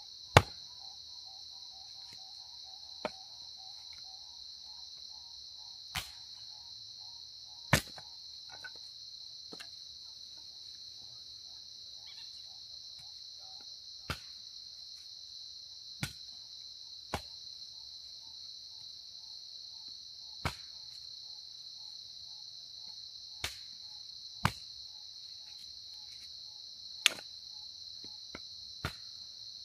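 Firewood being split into kindling with about a dozen sharp, irregularly spaced chopping blows, the first the loudest. Steady chirring of crickets runs underneath.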